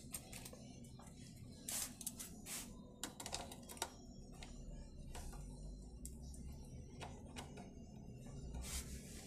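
Hand screwdriver clicking and scraping in the screws of a petrol generator's air filter cover as they are undone: a run of small clicks and taps, most of them in the first four seconds.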